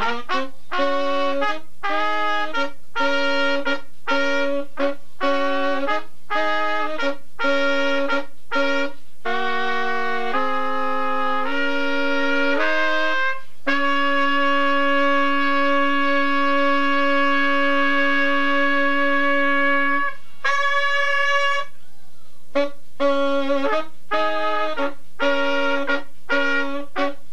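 Trumpet playing a phrase of short, clipped notes, then holding one long note for about six seconds, then going back to short, separated notes.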